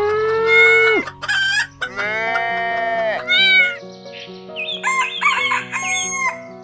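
Rooster crowing twice, each crow a long rising, held and falling call, then a run of short clucks about two-thirds of the way in, over light background music.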